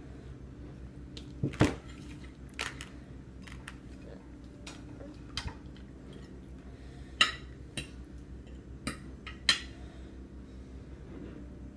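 A toddler's spoon clinking and scraping in a metal-lined suction bowl while she eats: a scatter of sharp, irregular clinks, the loudest about a second and a half in, around seven seconds, and near the end.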